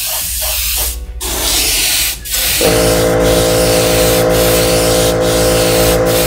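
An airbrush spraying paint onto a crankbait lure body, a steady hiss of air with two brief breaks in the first couple of seconds. From about two and a half seconds in, a steady low hum joins it.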